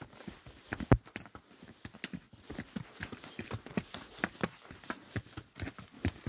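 Horses' hooves clip-clopping at a walk on a stony dirt trail, an uneven run of hoof strikes with one louder knock about a second in.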